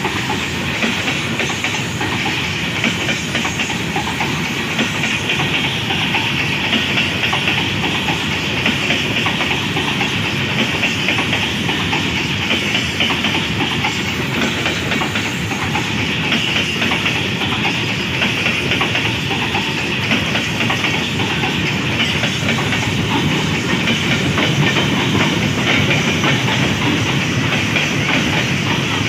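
Freight train's hopper wagons and open box wagons rolling past close by: a steady rolling noise of steel wheels on the rails with a continuous fine clatter and a steady high hiss.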